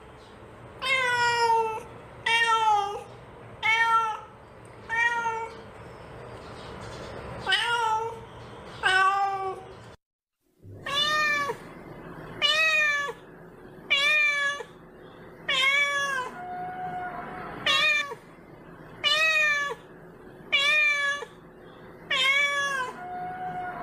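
A grey kitten meowing over and over, about fifteen calls each rising and falling in pitch, roughly one every second and a half, with a brief break about halfway through.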